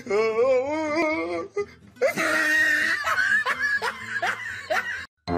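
A person laughing hard: a long wobbling laugh for the first second and a half, then higher, breathier laughter with short falling cries that cuts off just before the end.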